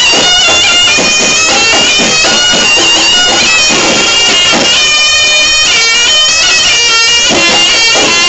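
Reog Ponorogo accompaniment music: a slompret, the reedy Javanese shawm, plays a loud ornamented melody with held notes and trills over percussion.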